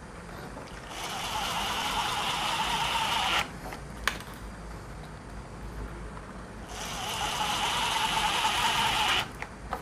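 Ryobi Kyocera BID10XR cordless impact driver driving two screws into plywood without pilot holes. Each run hammers for about two and a half seconds and cuts off suddenly as the screw seats, with a single short click between them.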